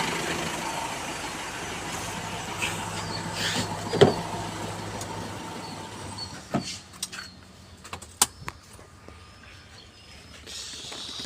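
Mitsubishi Pajero Sport engine idling steadily and growing quieter, with a sharp knock about four seconds in and a few short clicks and knocks in the second half.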